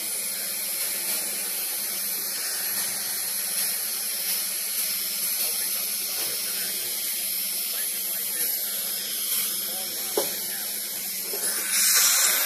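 Dental suction hissing steadily through the tube held in the patient's mouth, growing louder and harsher near the end as it draws in fluid.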